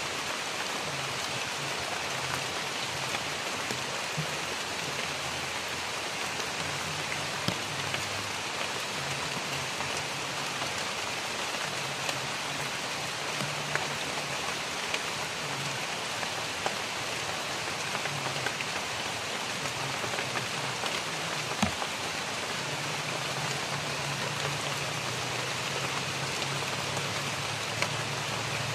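Steady rain falling on dense forest foliage, with a few sharper drop ticks now and then.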